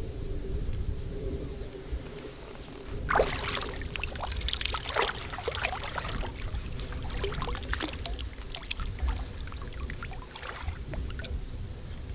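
Water splashing and knocking in irregular bursts over a steady low rumble, the loudest splash about three seconds in.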